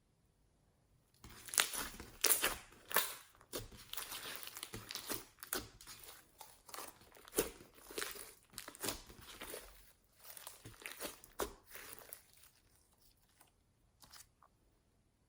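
Hands working glossy clear slime: a dense run of wet crackling and popping clicks as it is squeezed and stretched. It starts about a second in and thins out to a few scattered clicks near the end.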